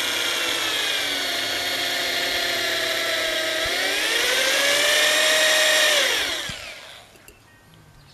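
Electric drill running an 8 mm Bosch HSS PointTeQ bit into welded steel. The motor whine sags a little under load, rises in pitch about three and a half seconds in, then winds down and stops about six and a half seconds in.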